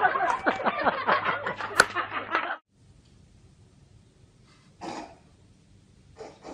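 Several people laughing loudly in quick pulses. The laughter cuts off suddenly about two and a half seconds in, leaving a faint hiss broken by two brief sounds, one near five seconds and one near the end.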